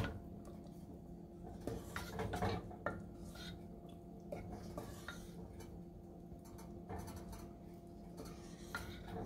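Black plastic ladle stirring a thick kidney-bean curry in a pot, with scattered scrapes and light knocks against the pot's side. A faint steady hum lies underneath.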